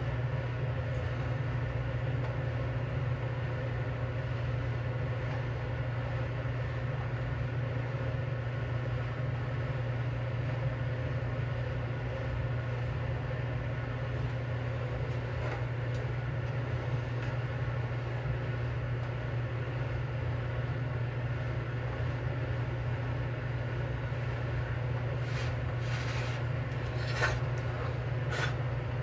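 Steady low rush of a gas stove burner heating a pan of water, with a few faint ticks near the end.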